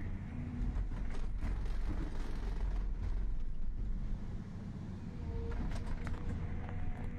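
Excavator's diesel engine running steadily under load, with a few short knocks from the ripper working.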